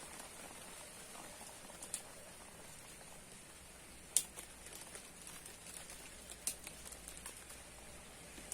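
Steady rain, with irregular drops ticking and pattering close by; the sharpest tick comes about four seconds in and a cluster follows a couple of seconds later.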